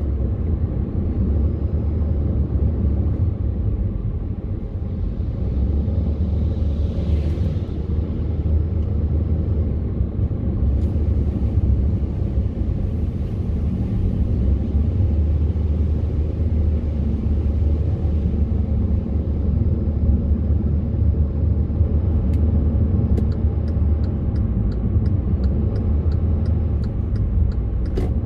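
Road noise heard from inside a moving car: a steady low rumble of engine and tyres, with a brief hiss about seven seconds in and faint regular ticking, about two a second, near the end.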